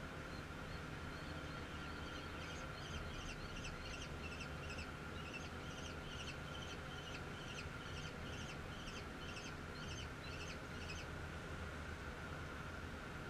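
Common kestrel calling: a fast series of sharp, repeated notes, about three a second, starting about a second in, with a short break midway, stopping about two seconds before the end. A steady background hum runs underneath.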